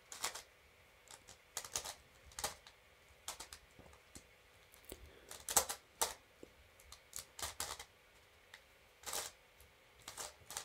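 Plastic clicks and clacks of a 5x5 ball-shaped twisty puzzle being turned by hand in quick irregular bursts, during the final algorithm of the solve. The puzzle turns catchily and a little slowly.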